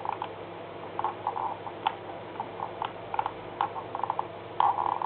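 Computer mouse clicks and scroll-wheel ticks, irregular and in short runs, over a steady low hum.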